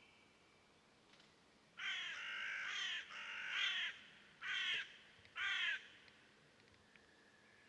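A bird calling four times: two longer calls close together, then two short ones about a second apart.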